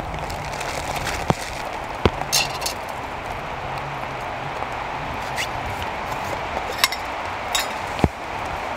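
Steady hiss of rain falling, with a few sharp metallic clinks as the aluminium parts of a camping spirit stove are handled and fitted together.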